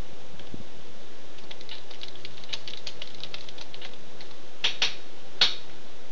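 A small screwdriver working tiny screws into a laptop screen's metal frame: a run of quick, light clicks, then three sharper clicks near the end.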